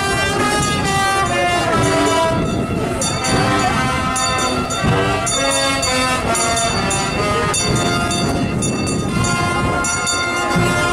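Brass band playing a slow processional march in held, full chords that change every second or so.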